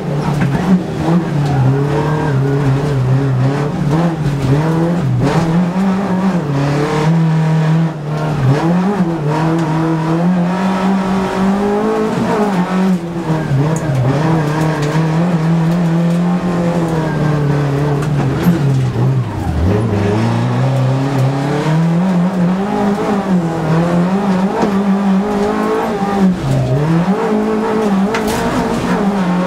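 Skoda Favorit 136 L rally car's 1.3-litre four-cylinder engine at full stage pace, heard loud from inside the cabin. The revs climb and drop over and over through the gear changes, sinking lowest about twenty seconds in.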